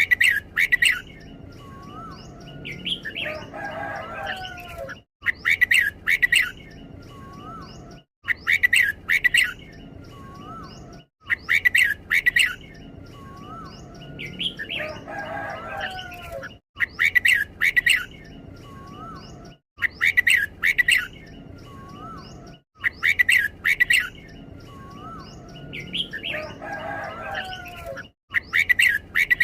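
Red-whiskered bulbul singing its doubled song: short, loud, clustered whistled phrases repeated every few seconds, with a longer, lower warbled phrase now and then over a steady low hum.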